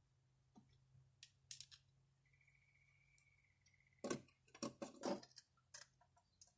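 A few sharp clicks, then a cluster of knocks and clatter about four seconds in, with a couple more clicks near the end: hand tools and small metal engine parts being handled, over a faint steady hum.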